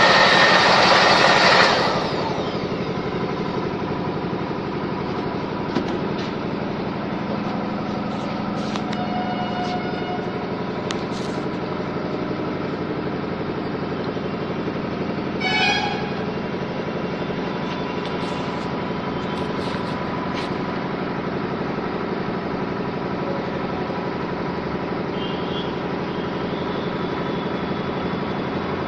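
A loud rushing noise cuts off about two seconds in, leaving a steady motor hum with a few light clicks and a brief pitched sound about halfway through.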